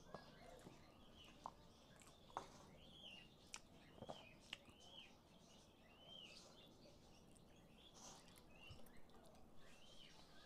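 Faint bird chirps, short arched notes repeating about once a second, under soft clicks and rustles from a plastic spoon and paper food cup being handled.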